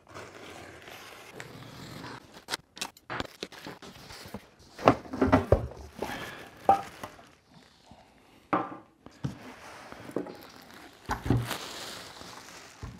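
Unboxing a new wet sharpener: cardboard box flaps opened, crinkling plastic packaging pulled off the parts, and irregular clicks and knocks as parts are handled and set on the workbench.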